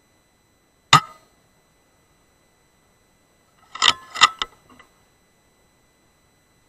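A single sharp shot from a Weihrauch HW100KT .177 PCP air rifle about a second in, fired while checking zero on a target. About four seconds in comes a quick run of four or five metallic clicks as the rifle's side-lever action is cycled to load the next pellet.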